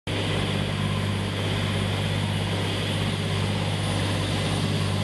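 Fishing boat's engine running steadily at speed, a constant low hum, over the rush of water and wind along the hull.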